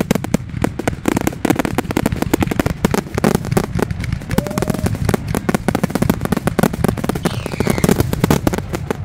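Fireworks display: a rapid, continuous barrage of bangs and crackles as many fireworks burst in quick succession.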